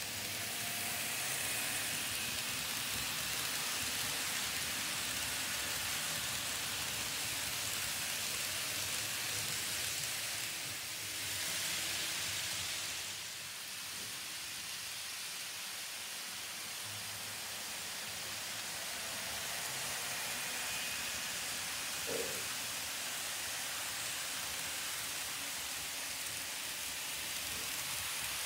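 Several N scale model trains running on Kato Unitrack: a steady whirring hiss of small motors and metal wheels rolling on the rails, with a faint thin whine now and then. It swells briefly about halfway through, and there is a short tick a little after twenty seconds in.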